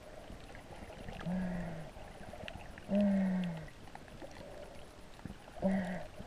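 Muffled human voice heard underwater: three short hummed calls, each sliding down in pitch, with a faint water hiss between them.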